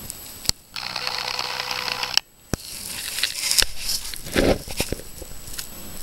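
Rustling and crackling noise on a handheld camera's microphone, broken by sharp clicks and brief dropouts about half a second and about two seconds in.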